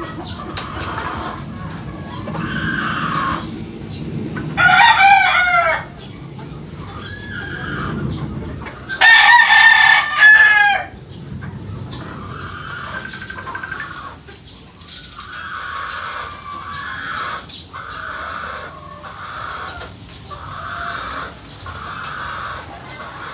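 Gamefowl roosters crowing twice, loudly: one crow about five seconds in and a longer one about nine seconds in.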